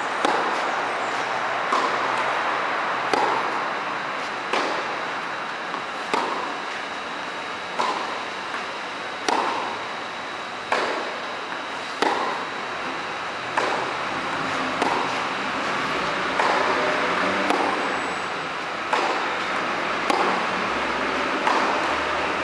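Tennis ball struck back and forth by rackets in a baseline rally, one sharp hit about every second and a half, echoing in a covered clay-court hall over a steady background hiss.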